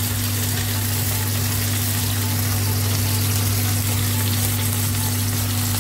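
Beef brisket searing in fat in a pot on the hob, a steady sizzle, over a steady low hum.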